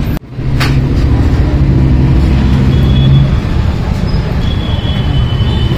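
Loud road traffic noise: a low rumble with a steady engine hum, a single sharp click about half a second in, and a thin high-pitched whine near the end.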